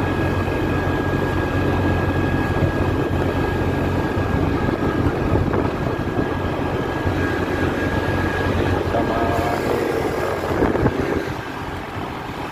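Motor scooter engine running steadily as it rides along, with wind rushing over the microphone; the engine's low hum eases about eight seconds in.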